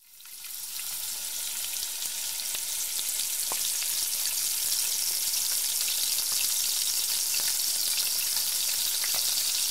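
Vegetables and mushrooms sizzling as they stir-fry in hot oil in a wok, a steady hiss that fades in over the first second. A wooden spatula stirring the wok adds a few light clicks.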